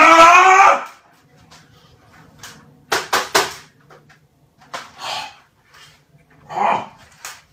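A man's loud wordless yell, rising in pitch and lasting under a second, in frustration at his games console suddenly losing power. A few sharp knocks follow a couple of seconds later, and another short vocal sound comes near the end.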